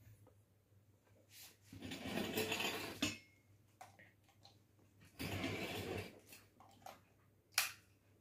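Kitchen vessels being handled: two longer rushing, scraping noises and a few light clinks and knocks, the sharpest near the end.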